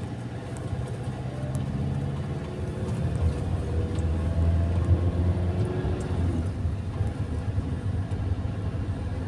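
Car engine heard from inside the cabin, pulling along a winding road with tyre and road noise. Its note climbs gradually and grows louder around the middle, then eases off after about six seconds.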